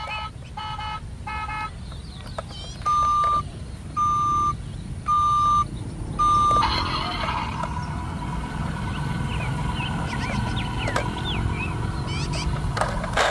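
Battery-powered toy double-decker bus's electronic sound module set off by its roof buttons: a few short beeps, then four steady beeps about a second apart, then a longer continuous electronic vehicle sound effect.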